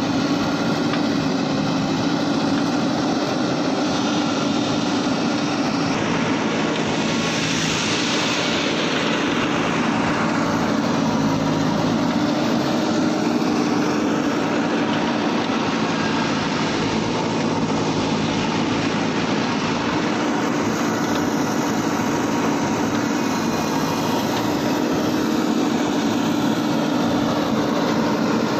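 JCB 3DX backhoe loader's diesel engine running steadily under work, with a louder rushing noise that swells and fades about six to ten seconds in.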